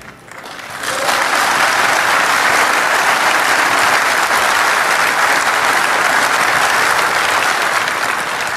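A large audience applauding. The clapping builds up over the first second, then holds steady.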